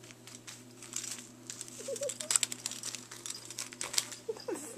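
Gift wrapping paper crinkling in quick, irregular crackles as a Bengal cat paws and noses at a wrapped present, dying away about four seconds in.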